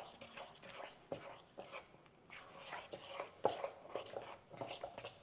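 A fork stirring a sticky flour-and-water dough in a stainless steel bowl: irregular scraping and clicking of the fork against the metal, several strokes a second.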